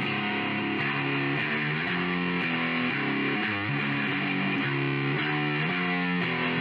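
Outro music: distorted electric guitar playing a steady riff.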